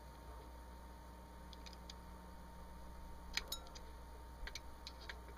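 Light metallic clicks and taps from the steel bolt and extractor pin of a Smith & Wesson M&P15 Sport AR-15 being worked with a small screwdriver to push out the extractor pin. A few soft clicks come about two seconds in, a sharper cluster around three and a half seconds, and several more near the end, over a faint steady hum.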